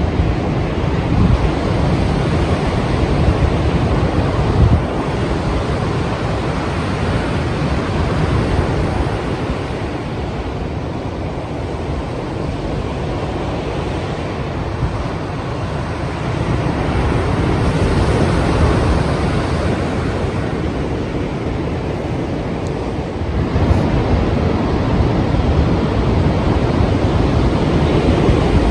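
Strong sea waves breaking as surf, a continuous rumbling wash that swells and eases slowly, with a louder surge about two-thirds of the way in.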